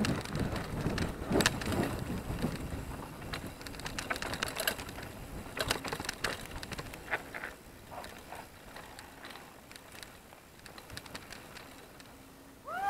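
Mountain bike clattering and rattling over a rough gravel track, with sharp knocks from the frame and wheels. The knocks thin out and quieten after about seven seconds. Near the end there is one short high squeal.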